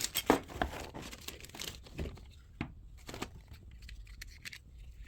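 Rustling and crinkling, as of something being handled, mixed with several sharp clicks and knocks. The loudest knock comes about a third of a second in, and the sounds thin out after the first two seconds.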